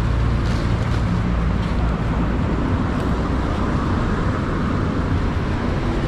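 Steady outdoor rumble of road traffic.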